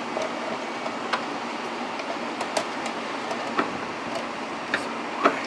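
Steady shop-fan noise, with a few scattered light clicks and knocks as the plastic fuel pump assembly is worked down into the fuel tank.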